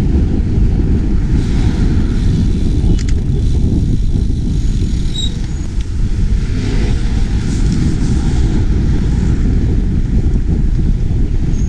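Wind rumbling on a chest-mounted GoPro microphone as a bicycle rides through city traffic, a loud, steady low noise with passing cars underneath.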